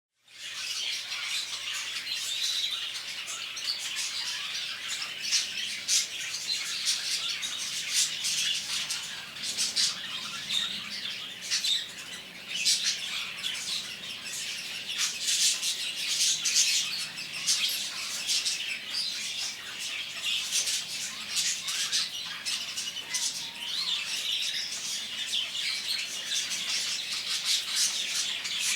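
Many small caged birds in a bird shop singing, chirping and squawking together in a dense, unbroken chatter of high, quick calls.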